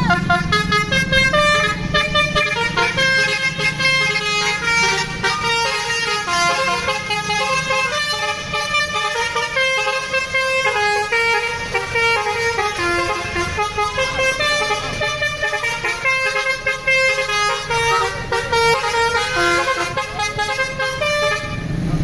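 A bus's basuri musical air horn playing a melody: a long run of quick stepped notes, a tune rather than a single honk, stopping about a second before the end.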